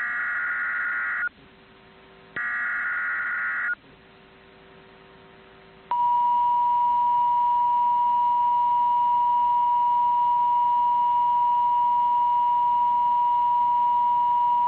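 Emergency Alert System signal: two harsh, buzzy bursts of SAME header data about a second apart, followed by a long, steady single-pitch attention tone near 1 kHz. Together these announce a National Weather Service warning.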